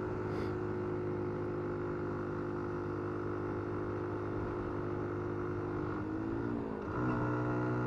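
Small single-cylinder engine of a Dax-style minibike running steadily under way up a slope. Its note wavers about six seconds in, then settles slightly lower and louder.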